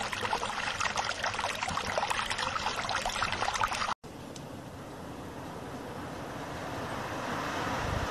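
Water pouring and splashing, a dense crackle of drops that cuts off abruptly about halfway through. It is followed by a smoother rushing hiss that slowly grows louder.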